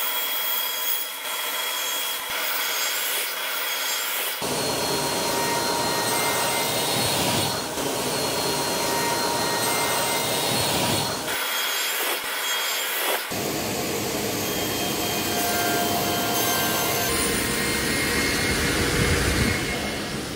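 King Industrial radial arm saw running with a steady whine, its blade spinning free for about four seconds and then biting into a thick softwood board in repeated passes to clear out a notch. The cutting noise drops back to the bare motor whine for a couple of seconds around the middle, then resumes.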